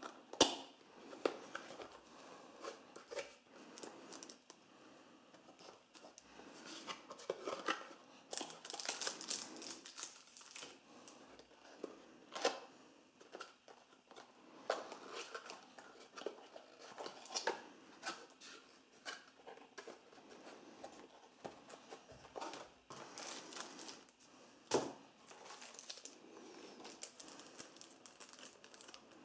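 Cardboard phone box and its plastic wrapping being handled and opened: irregular crinkling and rustling of plastic and paperboard, with sharp clicks and taps scattered through.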